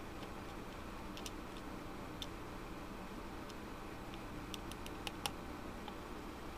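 Small, light clicks and taps of steel long-nose pliers and a small metal part against a plastic gearbox housing as the part is set into its hole: a few scattered ticks, then a quick run of them about four to five seconds in, over a steady low room hum.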